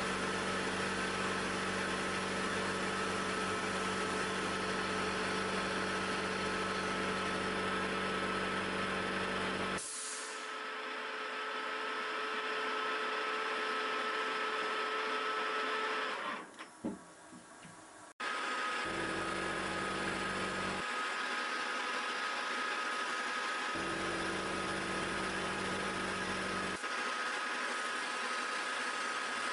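Milling machine running with a spiral end mill cutting a helical thread groove into a silver-steel gear-hob blank. It is a steady machine whine with a high, even tone. The sound changes about a third of the way in and dips briefly near the middle, with a sharp click. A lower hum then comes and goes twice.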